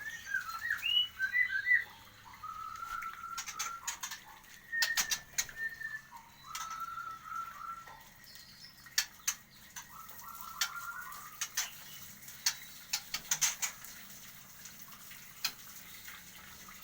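Caged white-rumped shamas (murai batu) calling: short chirps and whistled notes, with several short rattling runs of rapid notes. Scattered sharp clicks and taps run through them.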